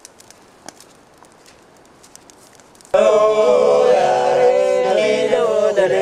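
A group of Papuan men starts singing together unaccompanied about halfway through, loud and in held, chant-like notes, after a few seconds of faint background with a few small clicks.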